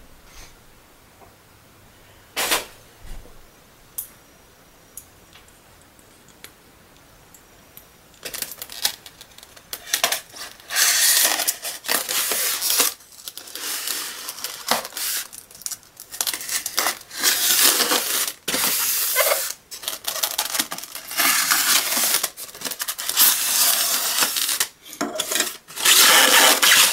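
A knife blade scraping and cutting along the seam of a styrofoam packing box in a long run of scratchy, tearing strokes, after a few quiet seconds with a couple of light clicks. Near the end the foam halves rub as they are worked apart.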